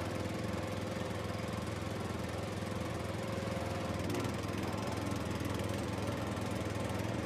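Small tractor engine running steadily, low and even, with no change in speed.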